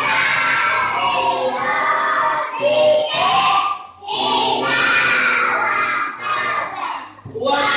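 A group of children reciting the Quran aloud together in a chanting melody. The phrases break briefly about four seconds in and again near the end.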